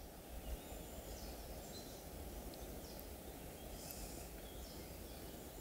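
Quiet outdoor forest ambience: a faint steady background rumble with a few faint, short bird calls.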